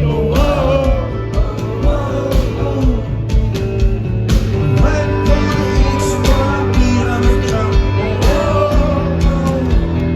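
Indie rock band playing live: a male lead vocal sings lines near the start, midway and near the end over a steady drum beat, bass and guitar.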